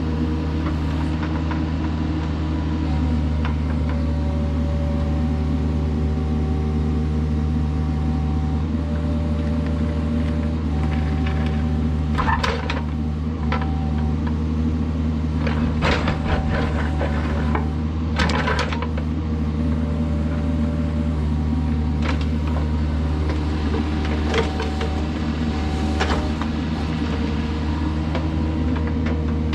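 Kubota mini excavator's diesel engine running steadily under working load, with a whine from its hydraulics. A few short clanks or scrapes come in the middle.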